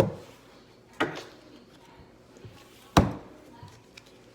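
Three sharp knocks, the second about a second after the first and the third about two seconds later; the third is the loudest.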